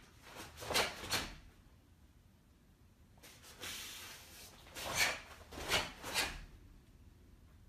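Karate gi fabric snapping with sharp strikes and blocks, and bare feet stepping on foam floor mats. Several short swishes and soft thuds come in two groups: a few in the first second or so, then more between about three and six and a half seconds.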